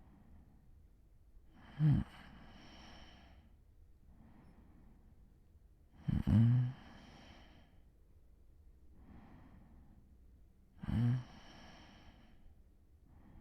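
A sleeping man snoring: three short, low, buzzing snores about four to five seconds apart, with softer airy breaths between them.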